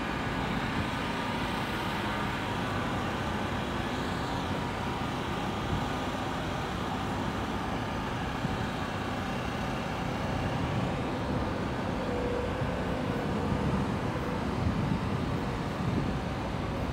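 Steady background drone of vehicle engines running, with a faint hum and no single event standing out.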